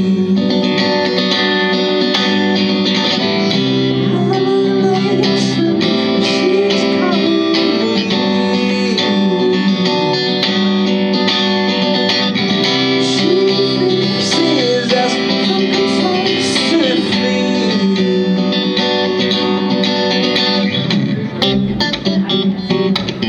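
Guitar playing an instrumental break in a song, single notes sliding up and down in pitch over steady low chords.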